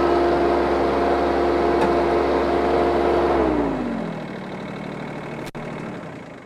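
Kioti CS20-series subcompact tractor's diesel engine running steadily as the tractor drives, then its revs drop a little over halfway through as it is throttled back, and it goes quieter.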